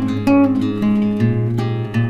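Background music: an acoustic guitar playing a melody of plucked notes over a held bass, the bass changing note a little past the middle.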